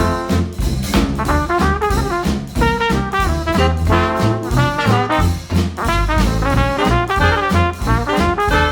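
Upbeat brass-led jazz music, horns playing over a steady bouncing beat.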